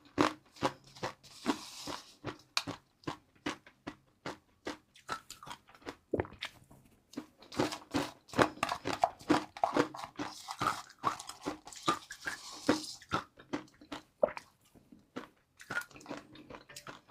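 Close-up eating sounds of a person chewing crunchy crispy noodles: rapid, irregular crunches and crackles, several a second.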